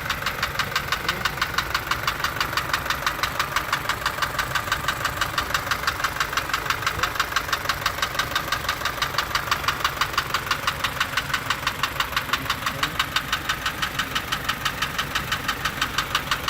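Isuzu light truck's engine idling with a fast, even ticking, several sharp ticks a second. This is the unexplained noise that has been there for about a month, with its cause still undiagnosed.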